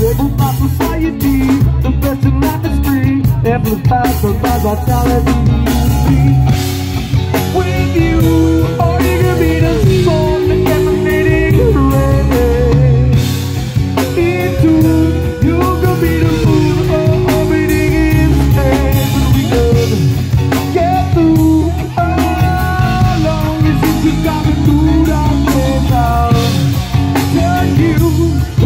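Reggae-rock band playing live: drum kit, electric bass and guitar, with a singer's voice over the top.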